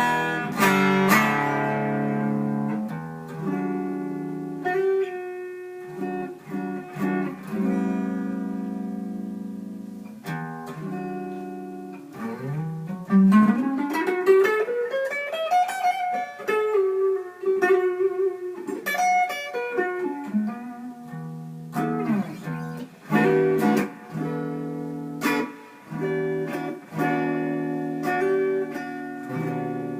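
Electric guitar played clean through a single-ended 6V6 tube amp into a Vintage 30 speaker, with reverb added: chords and picked single-note lines. About twelve seconds in, a note slides steadily up in pitch over a few seconds.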